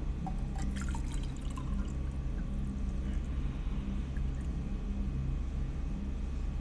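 Water poured from a bottle into a light-up LED cup, with a few small clicks in the first second and a half, over a steady low hum.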